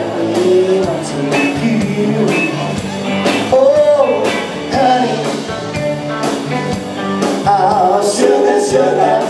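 Live band playing an upbeat rock-and-roll pop song: a singer's voice over guitar and a steady drum beat.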